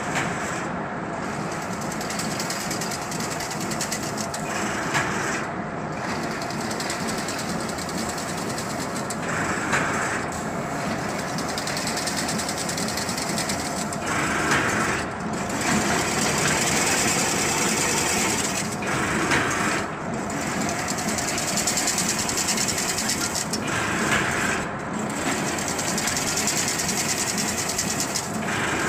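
Fully automatic chain link fence making machine running: a steady, dense mechanical clatter as it weaves wire into diamond mesh, with a brief change in the sound about every five seconds as its cycle repeats.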